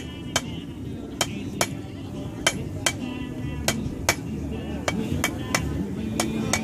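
Blacksmith's hammer striking hot steel on an anvil in a steady run of blows, about two to three a second, each with a short metallic ring, as the stock is shaped into a small leaf.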